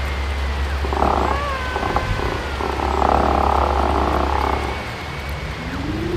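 Layered horror sound effects: a steady low drone under thin, slowly wavering high tones, with raspy, croak-like growls about a second in and again from about three to four and a half seconds in.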